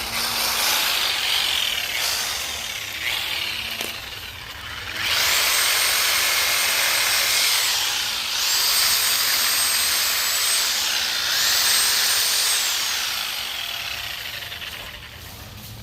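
Sawzall reciprocating saw cutting through tree branches. The motor runs up to full speed and winds down in three runs of two to three seconds each, with the blade rasping through the wood.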